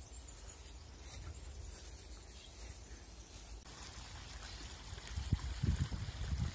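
Ultrasonic aroma diffuser running, its water tank trickling and bubbling softly under a low hum. From about five seconds in come loud low irregular knocks and rumbles as the plastic cover is handled and set on.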